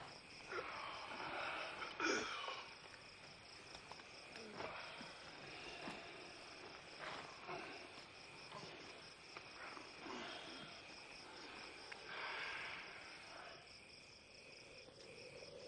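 Faint, steady chirring of crickets, with scattered soft rustles and footfalls on rocky ground.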